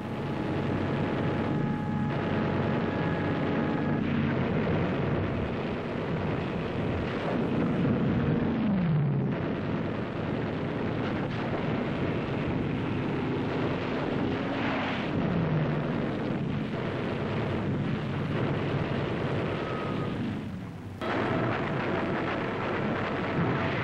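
Aircraft engines whining down in pitch twice as planes dive past, over continuous anti-aircraft gunfire and explosions.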